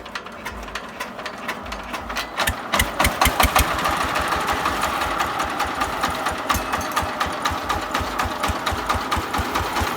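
Diesel tractor engine started by hand crank: its firing beats come quicker over the first three seconds as it catches, then it runs at a steady, fast beat.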